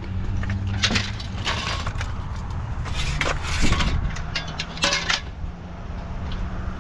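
Junk and scrap clattering and scraping as items are shifted around in a dumpster, in four or five short bursts over a steady low hum.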